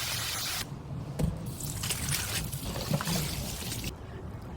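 Liquid being poured, with a few sharp knocks of kitchen utensils. A steady hiss cuts off suddenly in the first second.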